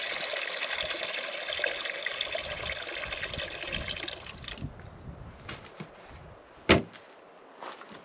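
Water running from a plastic water jug's spigot and splashing into a wooden bowl, stopping about four and a half seconds in. A single sharp knock comes near the end.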